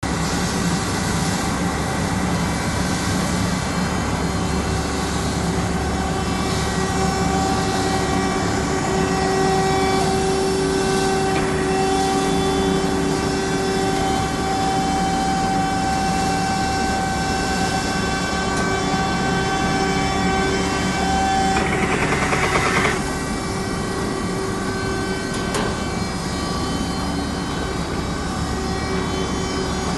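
Sawdust pallet-block extruder running: a steady machine drone with several held whining tones, and a short, louder rattling clatter about 22 seconds in.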